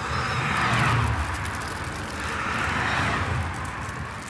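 Two road vehicles driving past one after the other. The tyre and engine noise swells and fades about a second in, then again about two seconds later.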